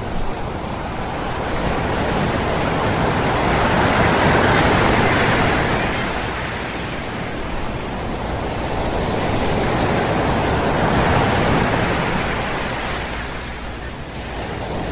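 Heavy ocean surf breaking on a beach: a continuous wash of waves that swells twice, about four seconds in and again around eleven seconds, then eases.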